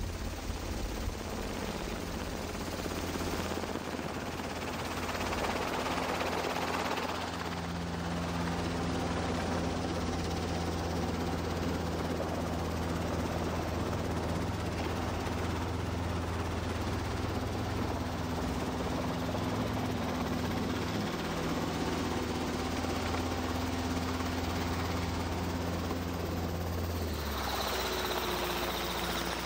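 Helicopter engine and rotors running, heard from aboard: a steady low drone with a hum over it. About two seconds before the end the low drone drops in pitch.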